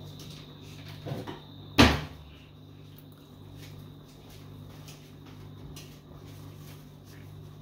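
A kitchen cupboard door being shut: a couple of softer knocks, then one sharp knock just under two seconds in. A steady low hum runs underneath.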